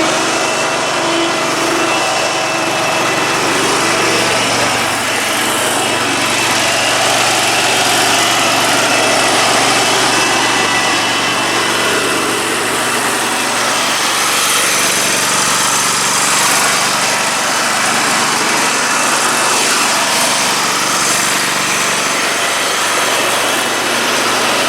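Engine of a Dixon 72-inch riding mower running steadily.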